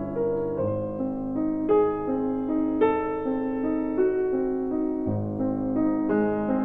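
Background piano music: slow chords and melody notes struck every half second to a second.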